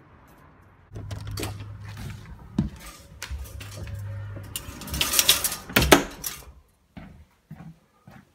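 Indoor movement and handling noise: knocks, rustling and footsteps as someone comes in through a door and walks through the house, with a louder clatter about five to six seconds in and a few short clicks near the end.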